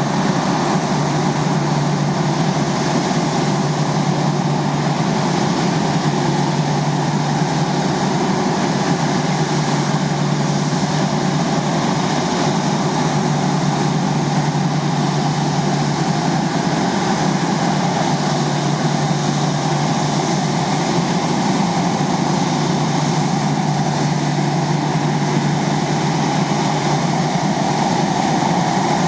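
Rolls-Royce Trent 1000 turbofan on a Boeing 787 Dreamliner idling: a steady low hum under an even rushing hiss, holding level with no change.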